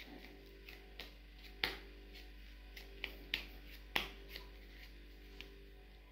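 About half a dozen sharp, irregular clicks and taps, like small plastic tubs or lids being handled, over a faint steady hum.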